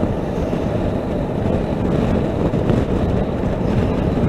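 Steady wind rush and road noise from a Honda NC700X motorcycle under way, heavy in the low end, with no distinct engine note standing out.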